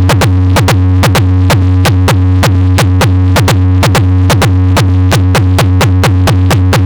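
Loud electronic music with a heavy, steady bass tone and fast drum hits, about four or five a second, each dropping in pitch, played through a trailer-mounted car sound system (carretinha) pushed hard on the bass.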